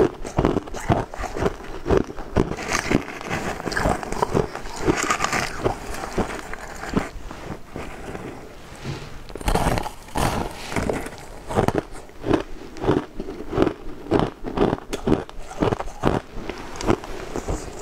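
Close-miked crunching and chewing of crushed ice: rapid crunches, about two to three a second, with a short quieter lull about halfway through.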